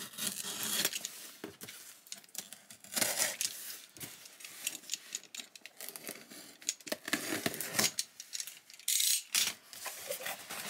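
Utility knife slicing through the packing tape on a cardboard box, then the tape tearing and the cardboard flaps being pulled open. It comes in several scratchy bursts with clicks and rustles between them.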